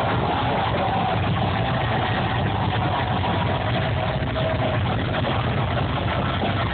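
Heavy metal band playing live and very loud through a concert PA, captured by a phone microphone so overloaded that the music blurs into a steady, dense, distorted wash, with only faint held guitar or vocal notes standing out.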